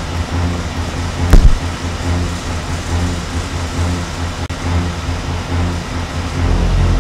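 Low, steady rumbling drone of a horror film's soundtrack, with a single loud thud about a second and a half in and a small click a little after four seconds.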